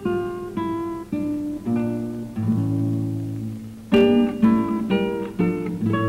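Acoustic guitar music: a slow plucked melody of single ringing notes, a chord held in the middle, then a quicker run of notes.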